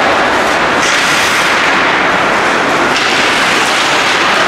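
Loud, dense noise of an ice hockey game in play, with sharp cracking sounds mixed in. It brightens about a second in and shifts again about three seconds in.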